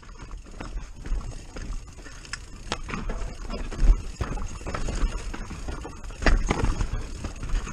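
Commencal Clash mountain bike clattering down a rocky trail: tyres crunching over loose stones and dirt, with irregular sharp knocks as the bike hits rocks, the loudest about four and six seconds in.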